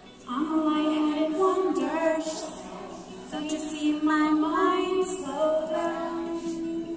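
A woman singing live in two phrases, with a short break about three seconds in and a held note near the end, and little or no instrument behind her.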